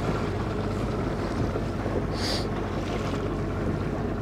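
Boat motor running steadily at slow trolling speed, with wind noise on the microphone. A short hiss about halfway through.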